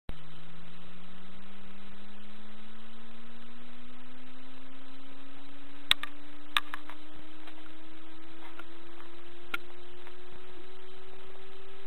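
Synthesized electronic tone, hum-like, rising slowly and evenly in pitch, with a few sharp clicks past the halfway point.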